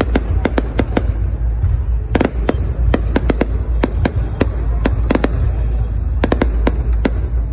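Aerial fireworks bursting overhead: a rapid, irregular string of sharp bangs, several a second, over a steady low rumble.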